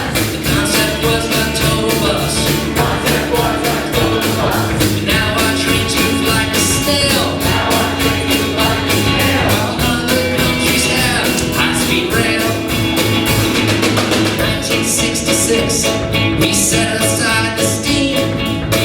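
A rock band playing live: drums keeping a steady, driving beat under bass, electric guitar, keyboard and violin.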